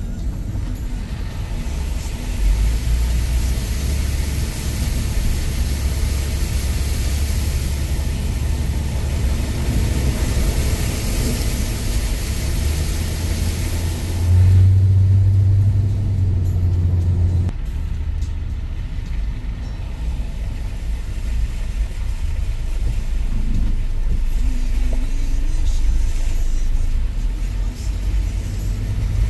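Car cabin noise while driving on a waterlogged road: a steady low engine and road drone, with a hiss of tyres through water on the road for roughly the first half. About halfway through, a louder low engine drone rises for about three seconds, then drops back.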